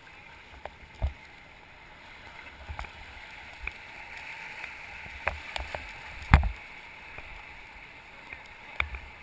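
Raft paddlers stroking forward on a river: a steady rush of moving water with irregular splashes and knocks from the paddles, the loudest about six seconds in.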